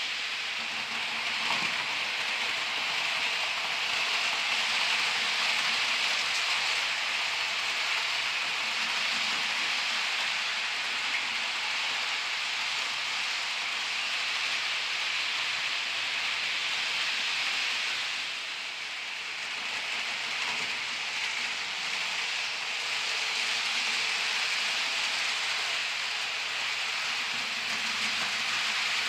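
HO scale model trains rolling on the layout's track: a steady hiss of small metal wheels on the rails and the locomotives' motors, easing off briefly about two-thirds of the way through.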